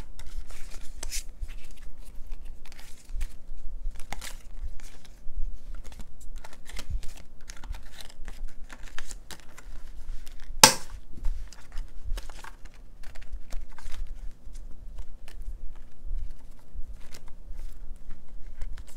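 Paper, card and stickers being handled at a desk: rustling and crinkling with many small ticks and taps, and one sharp click a little past halfway.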